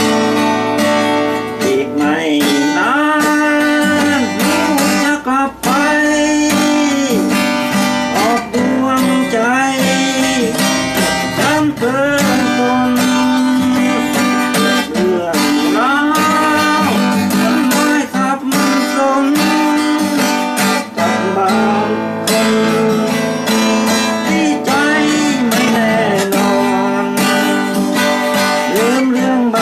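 Acoustic guitar played solo: strummed chords mixed with picked single-note melody lines that bend up and down.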